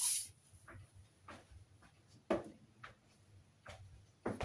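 A brief soft hiss at the start, then a few faint, scattered taps and knocks of small objects being handled, the loudest a little past halfway.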